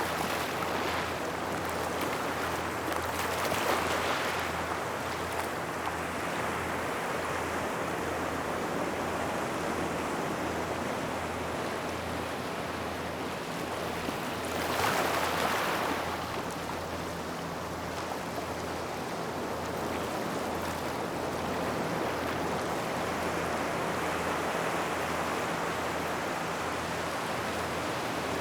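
Small waves washing onto a gravel shore by rocks, a continuous rush of water over pebbles, with two stronger waves breaking about 4 s and 15 s in.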